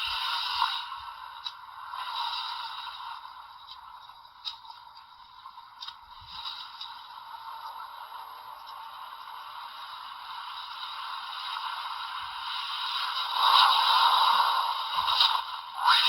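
Premium DX Boost Mark IX Raise Buckle toy playing its alternate Boost Mark III transformation sound effects through its small built-in speaker, thin and tinny. The sound goes quieter in the middle and swells louder near the end.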